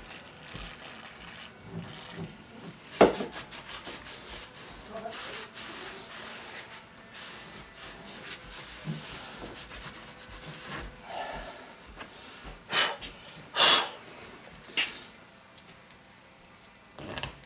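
Cloth rag rubbing and wiping a Datsun pickup's steel front spindle clean, with a sharp knock about three seconds in and a few short loud hissing bursts of brake-cleaner spray in the second half. This is degreasing the spindle before a bearing adapter is glued on.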